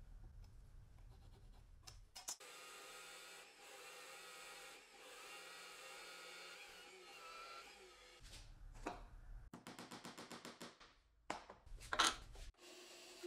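Drill press running steadily while its bit bores a hole into wood, throwing off shavings. After that comes a quick run of regular clicks, then a few sharp wooden knocks, the loudest about twelve seconds in.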